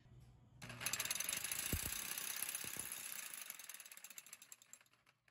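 A reciprocating saw shaking a steel vibration-test jig, a fast, even metallic rattle that starts about a second in and dies away over the last two seconds as the test stops.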